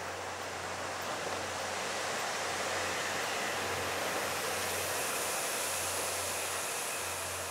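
A steady rushing noise that swells a little midway and eases near the end, over a low steady hum.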